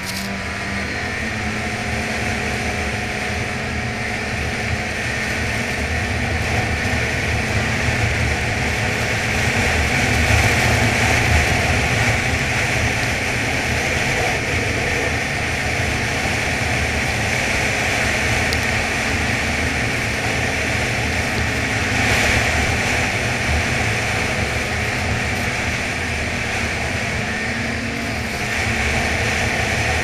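Ski-Doo Freeride 137 snowmobile running steadily at trail speed. Its engine drone and track rumble come through as a continuous noise that grows a little louder across the stretch.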